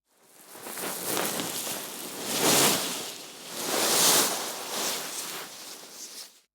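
Cloth rustling: fabric swished and handled in several swells, loudest about two and a half and four seconds in, fading away near the end.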